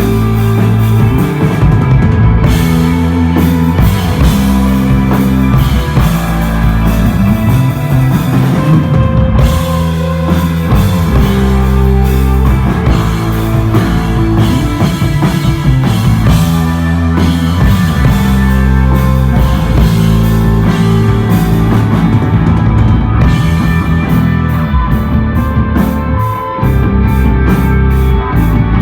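Instrumental desert rock band playing live and loud, with electric guitar, bass and drum kit over stepping bass notes. Near the end the drums fall into quick even hits, about four a second.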